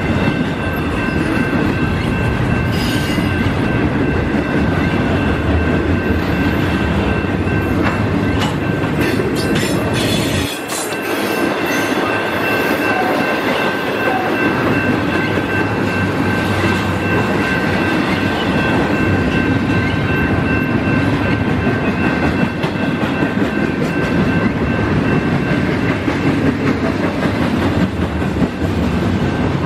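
Double-stack intermodal freight train rolling past: a steady rumble of steel wheels on rail with clickety-clack over rail joints, and a steady high-pitched ringing tone on top. A few sharp clanks come about eight to ten seconds in.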